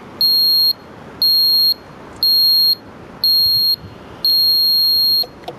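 Electronic buzzer on a home-built model rocket launch box sounding the launch countdown: short, high beeps about once a second, the last held about twice as long. A short click follows near the end.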